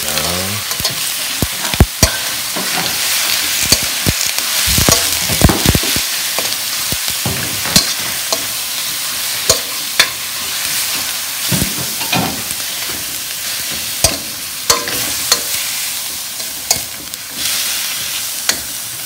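Thinly sliced beef and onions sizzling steadily in hot oil in a stainless steel wok while being stir-fried, with a metal spatula clanking and scraping against the pan at irregular moments throughout.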